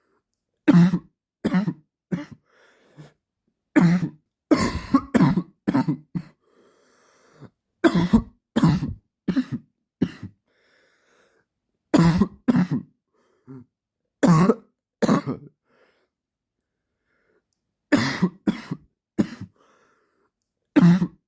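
A man's persistent dry cough, coming in fits of two to four sharp coughs with short quiet pauses between them.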